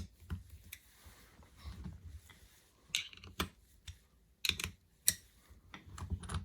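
Irregular metal clicks and knocks as a small steel 2-axis precision angular vise is handled and tilted on its second rotation axis. The sharpest clacks come about three seconds in and again around four and a half and five seconds.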